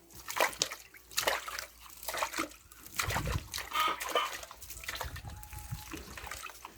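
Pig eating wet feed from a trough: irregular wet slurping, smacking and splashing, with a few heavier knocks about halfway through.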